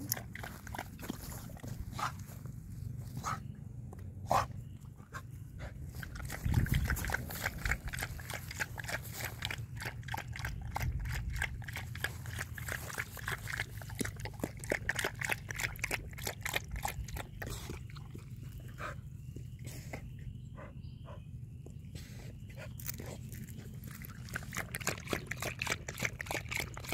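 American Staffordshire Terrier lapping water from a stainless steel bowl, a quick, steady run of laps several a second with brief pauses.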